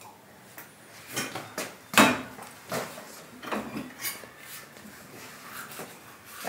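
Small stainless-steel cups knocking and clinking against a table, a string of scattered knocks with the loudest about two seconds in.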